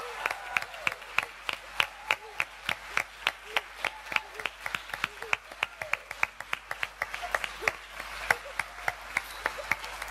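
Audience clapping in a steady rhythm, about four sharp claps a second, with faint voices underneath.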